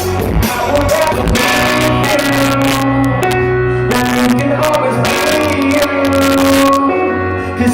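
Live pop-rock band playing with guitar, loud and crackling from being recorded too close to the PA speakers.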